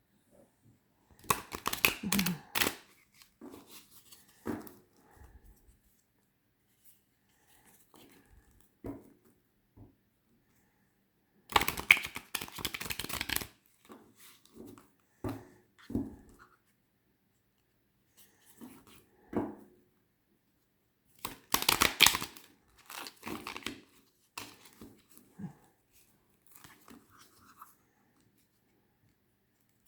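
A deck of semi-gloss oracle cards being shuffled by hand: three bursts of rapid card flutter and rattle, one near the start, one about midway and one about two-thirds through. Softer taps and shuffling of the cards come between them.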